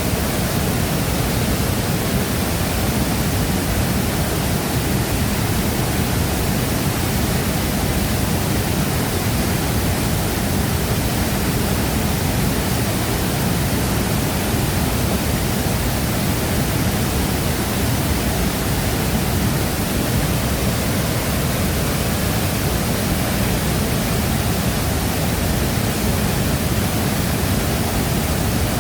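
Shifen Waterfall's falling water: a steady, loud, unbroken roar of cascading water, deepest in the low end.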